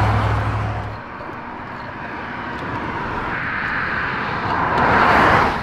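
Highway traffic passing close by: a vehicle swells past, loudest about five seconds in, then fades. Before it, a low engine drone cuts off abruptly about a second in.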